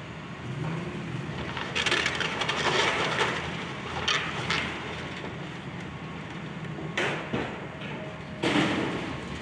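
Excavator demolishing a wooden building: its diesel engine runs steadily while timber is crushed and splintered. There is a spell of crunching about two seconds in, and sharp cracking crashes near the middle and again near the end.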